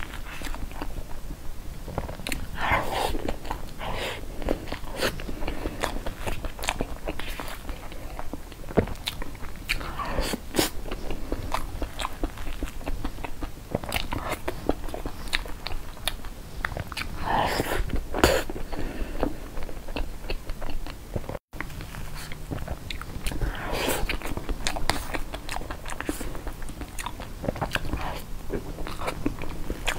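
Close-miked eating of soft cream cake: wet chewing and many small mouth clicks, the sound cutting out for an instant about two-thirds of the way in.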